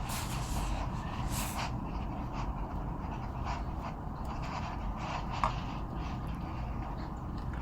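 A cat sniffing in short, noisy breaths, heard up close through a camera microphone worn on her neck, over a steady low rumble.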